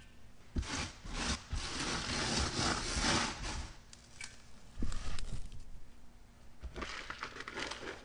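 Hands crushing and rubbing dry, crumbled sand-and-cement block: gritty, grainy rustling in several spells, with a few dull knocks about five seconds in.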